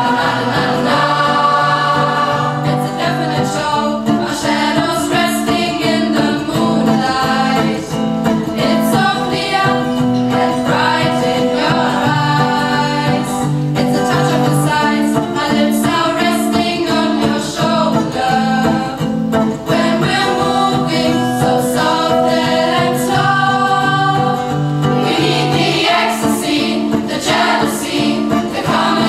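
A choir singing, with sustained low voice notes under moving upper parts.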